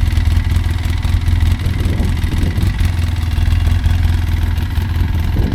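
Side-by-side UTV engine running steadily with a low drone.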